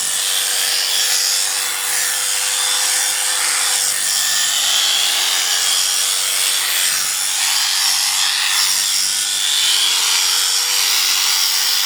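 Electric sheep shears running steadily with a constant motor hum and a hiss, shearing a sheep's fleece.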